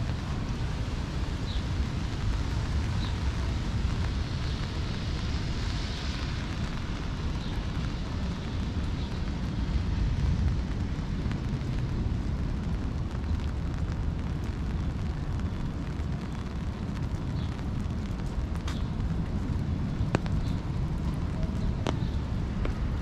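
Steady rain falling, with a heavy low rumble and a few sharp taps near the end.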